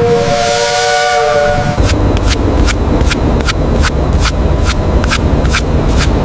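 Steam locomotive whistle sounding a chord of several steady tones over hiss for nearly two seconds, then the locomotive running with a low rumble and a sharp beat about three times a second.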